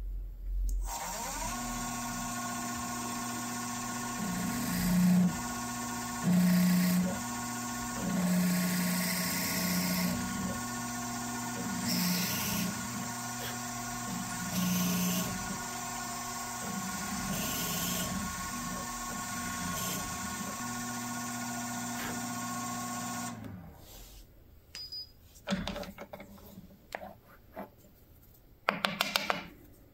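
Drill press motor spinning up about a second in and running steadily, with several louder surges as the twist bit cuts into a small wooden block. The motor shuts off a few seconds before the end, followed by scattered clicks and knocks as the block is handled in the metal vise.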